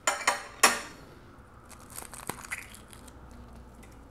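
Duck eggshell being cracked and picked apart by hand: a few loud crackles in the first second, then fainter scattered clicks and crinkles of shell.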